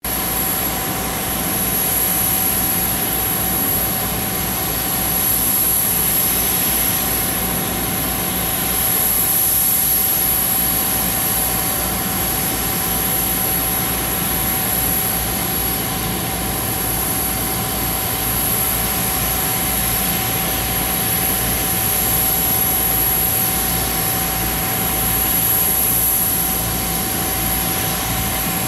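Parked Gulfstream business jet's turbine running steadily at idle: a constant high-pitched whine over a low rumble.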